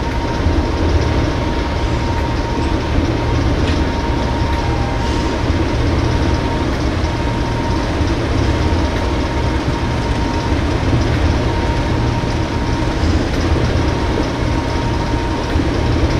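English Electric Class 37 diesel locomotive, its V12 diesel engine running steadily as the locomotive moves slowly forward at low power. A thin, steady whistle runs over the deep engine note.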